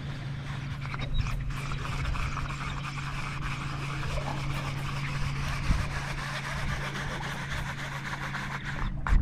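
A boat motor running steadily with a low hum, under wind and water noise.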